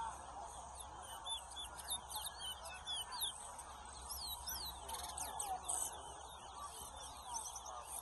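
Caged twa-twa finches (chestnut-bellied seed finches) singing in a song race: quick runs of short, clear whistled notes, many sliding up or down in pitch.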